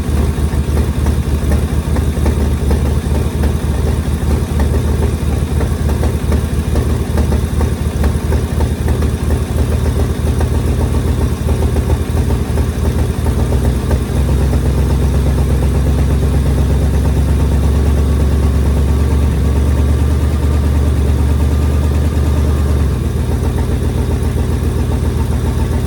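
Ford Thunderbird engine idling steadily after being revived, with vacuum leaks according to the owner. About halfway in the idle note shifts and steadies, then drops back shortly before the end.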